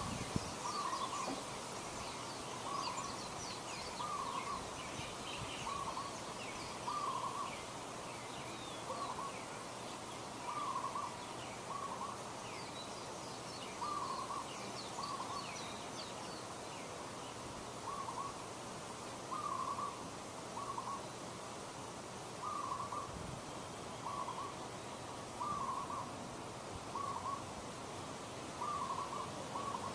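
A bird repeating short, hoot-like calls of one pitch every second or two, often in pairs, over faint high chirping.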